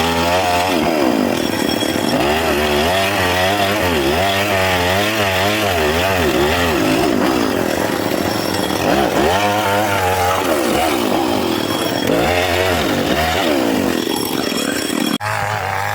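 Chainsaw cutting wood, its engine speed rising and falling repeatedly as the chain bites under load. About a second before the end the engine drops suddenly to a lower, steady speed.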